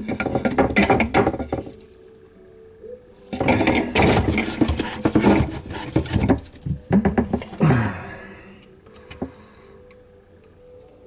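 Clattering and clinking of small parts being handled: a dauber knocking in a metal can of PVC cleaner and plastic pipe fittings being picked up. It comes in two busy spells with a lull between them.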